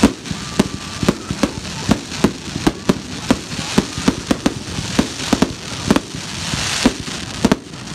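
Fireworks display: aerial shells bursting in a rapid, irregular run of bangs, about three a second, with a hissing crackle about two-thirds of the way through.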